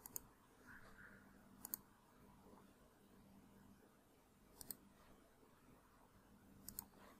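Computer mouse button clicks: four quick press-and-release pairs a second or two apart, over near silence.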